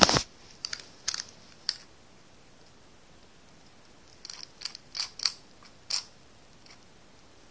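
Small metal clicks and rattles from a combination padlock being handled, in two short clusters with a pause between.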